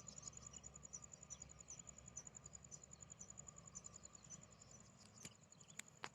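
Faint, steady chirping of an insect, a fast even train of high pulses several times a second, with a few sharp clicks near the end.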